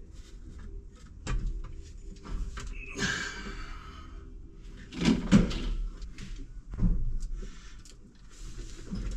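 Clunks and knocks of a tractor seat's suspension base being handled and set down, with a brief rustling scrape about three seconds in; the loudest knocks come about five seconds in.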